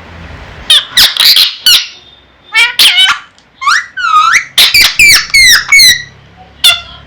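Pet parrot giving a run of loud, short squawks that bend sharply in pitch, in quick clusters with brief pauses between them.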